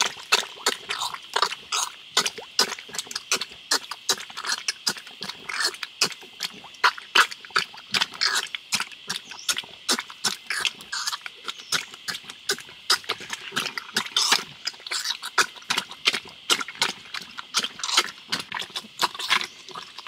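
Newborn wild boar piglets squealing and grunting in many quick, short calls, over a steady high-pitched background hum.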